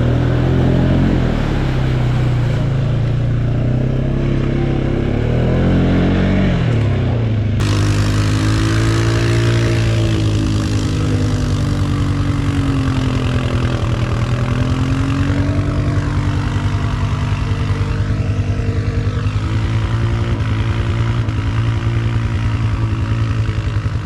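ATV engine running hard under load, its revs rising and falling as it is ridden over rough ground.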